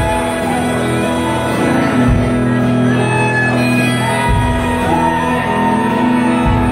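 Rock band playing live: electric guitar with bass and drums, a low drum hit about every two seconds.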